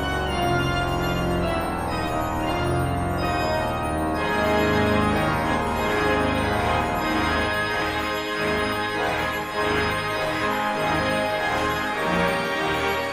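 Church organ playing sustained chords over deep bass notes. From about four seconds in, the texture grows busier and brighter, with quicker-moving notes.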